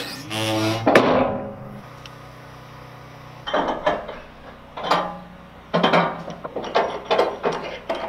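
Metal clanks and knocks from a tool being worked on the leg adjustment of a Wood-Mizer portable sawmill's metal bed, where a tight nut is holding the leg. There is a heavy knock about a second in, then a run of sharp clanks with short ringing over the second half.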